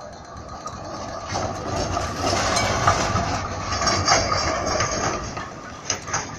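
B2-class tram passing close by, its steel wheels rumbling and clacking over the intersection's track crossings. The sound builds from about a second in, is loudest in the middle, and fades near the end.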